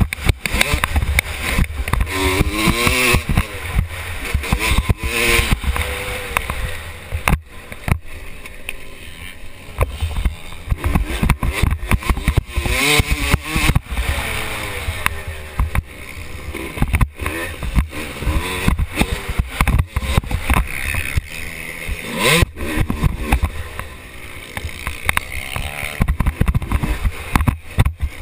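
Motocross bike engine revving up and falling back again and again, heard muffled and distorted through a loosely attached helmet camera, with constant knocking and rattling and heavy wind rumble over it.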